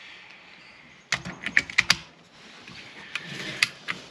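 Quick, sharp metallic clicks from .22 rimfire cartridges being handled and loaded into a magazine: a fast run of clicks about a second in, then a few more near the end.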